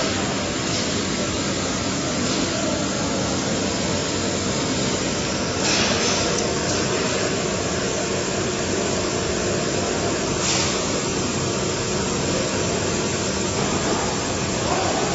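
Steady, loud hum and air noise of factory machinery, with short hissing bursts near the start, about six seconds in and about ten and a half seconds in.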